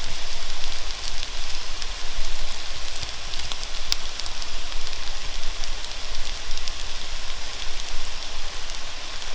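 Okonomiyaki batter of shredded cabbage, shrimp and rock scallop frying in a hot pan: a steady sizzle with many small crackling pops.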